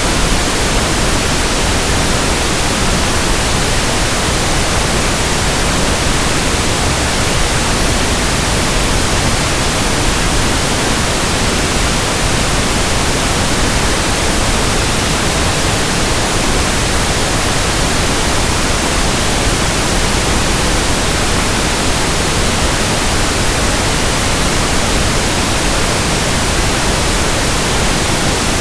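Steady pink noise test signal, a constant even hiss spread across the whole frequency range, from an audio test track for tuning a sound system.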